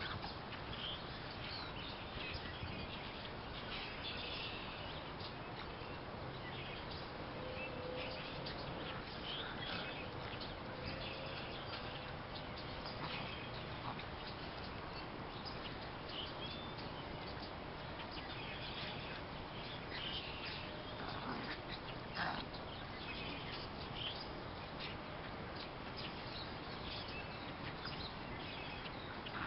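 Wild birds chirping in short, scattered calls over a steady outdoor background hiss.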